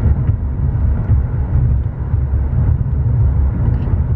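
Steady low rumble of a moving car, heard from inside the cabin: road and engine noise.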